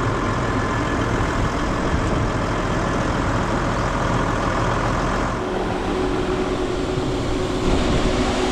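Tractor engine running steadily while its front-end loader holds a grain hopper over a trailer. A steady tone joins the engine about five seconds in, and near the end grain rushes out of the hopper's chute into the trailer.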